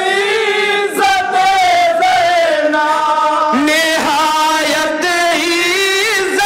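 Men singing a manqabat, an Urdu devotional poem, together in chorus, drawing out long held notes that slide gently in pitch.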